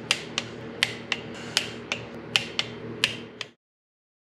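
Small hand ratchet with a 3 mm hex bit clicking in about ten sharp, unevenly spaced clicks as the water pump bolts are tightened. The sound cuts off abruptly about three and a half seconds in.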